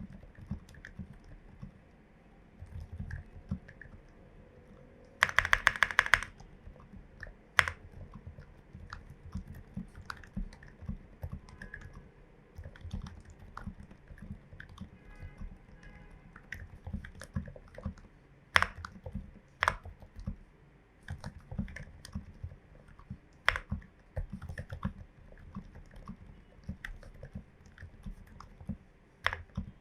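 Typing on a Glorious GMMK Pro mechanical keyboard with lubed, filmed switches and MT3 keycaps: a steady run of soft, deep keystrokes. About five seconds in comes a fast burst of about ten sharp, loud clacks, and a few single louder clacks stand out later.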